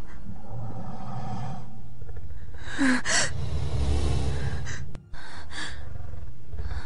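A young woman gasping and breathing shakily, several short gasps from about three seconds in, over a low steady rumble.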